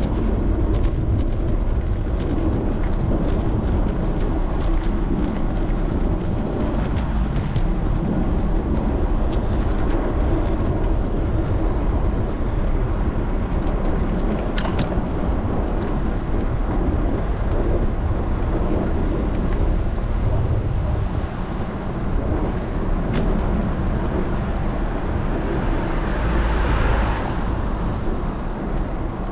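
Wind rumbling on the microphone of a cyclist riding along a road, a steady low noise with a brief swell of hiss near the end.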